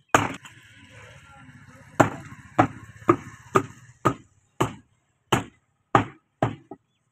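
Heavy meat cleaver chopping into a beef rib section on a wooden chopping block: a run of about eleven sharp chops, the first two a couple of seconds apart, then about two a second.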